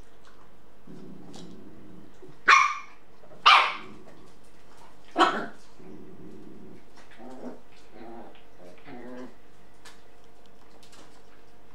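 Shiba Inu dogs squabbling over a toothbrush chew: low growling, then three sharp barks in the first half, then a run of short pulsing growls. The growling is resource guarding, the adult warning the puppies off his chew.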